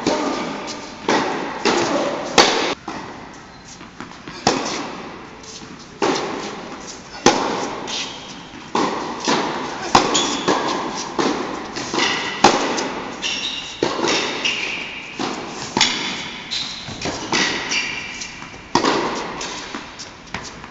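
Tennis balls struck by rackets and bouncing on an indoor hard court during a baseline rally: sharp pops about every second or so, each ringing on in the echoing hall, with short high squeaks here and there.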